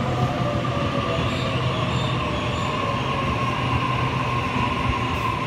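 Double-deck electric passenger train moving along the platform. Its steady rumble carries a whine that falls slightly in pitch as it slows, with faint high wheel squeals in the first few seconds.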